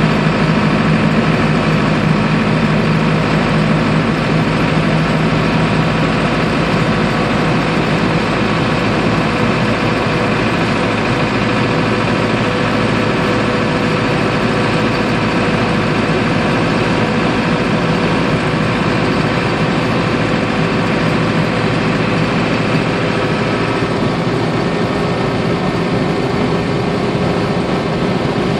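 Land Rover Series 109 under way at a steady cruise: the drone of its turbo-diesel engine, taken from a 2002 Defender, over constant road and drivetrain noise.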